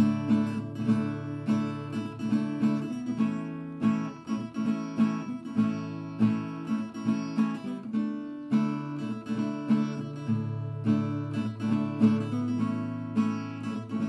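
Background music: acoustic guitar playing a steady, repeating picked and strummed pattern.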